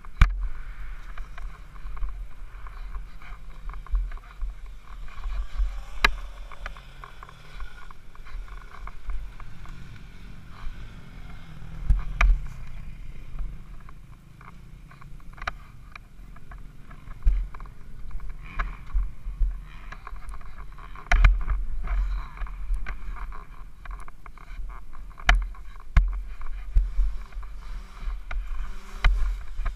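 SSR150 pit bike's single-cylinder four-stroke engine running at low speed, heard through a helmet-mounted camera with a deep rumble of wind and jolting on the microphone. Sharp knocks and clatters come every few seconds as the bike goes over bumps and branches.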